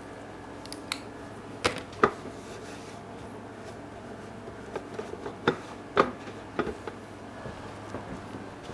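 Irregular sharp knocks and clicks of hard objects being handled, the loudest about two seconds in and about six seconds in, over a steady low hum.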